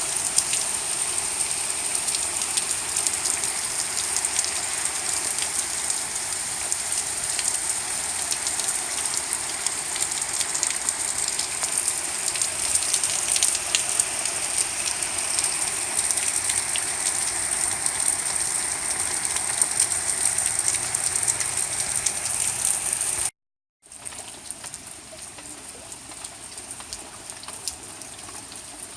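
Steady heavy rain with many individual drop hits. It cuts out for a moment about 23 seconds in and comes back quieter.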